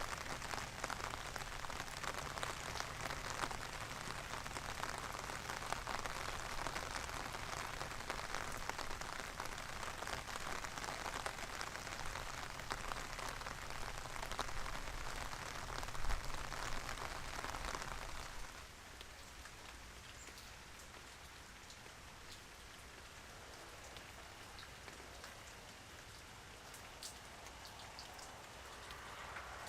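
Rain falling in a dense, steady patter. About two-thirds of the way through it drops abruptly to a quieter, lighter patter with a few single drips standing out.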